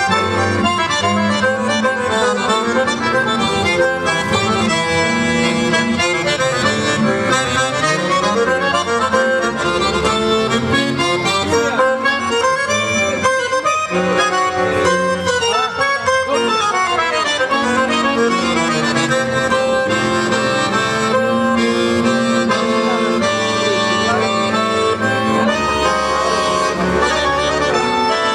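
Traditional Sardinian folk music played on reed instruments: a continuous, busy melody over a held low drone.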